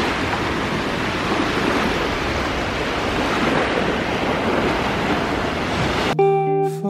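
Small waves breaking and washing up on a sandy beach, a steady surf hiss, with wind rumbling on the microphone. About six seconds in it cuts off abruptly and acoustic guitar music begins.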